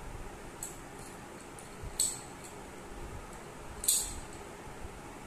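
Small hard object handled in the hands, giving two sharp clicks or clinks about two seconds apart, with a few faint ticks before them.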